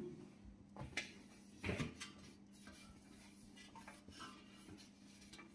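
Quiet handling sounds of kitchen cleaning: a few faint knocks and light rubbing as a stainless-steel cooker hood panel is lifted and wiped with a cloth, over a steady low hum.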